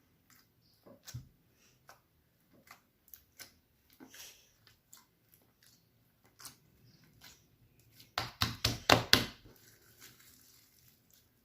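Slime being worked by hand: scattered sticky pops and crackles, then a quick run of about six loud popping clicks around eight seconds in.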